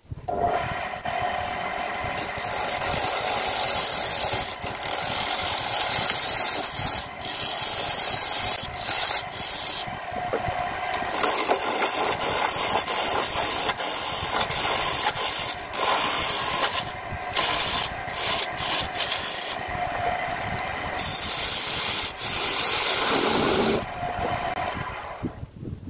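Wood lathe spinning a log blank while a hand-held chisel cuts it: a rough scraping, rasping hiss as shavings are peeled off. It breaks off several times where the tool is lifted and the lathe's steady motor hum shows through. The lathe stops near the end.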